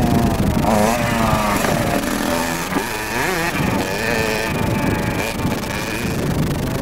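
Kawasaki KX 60's small two-stroke single-cylinder engine revving up and down as the bike is ridden over a dirt motocross track, its pitch rising and falling again and again with the throttle and gear changes.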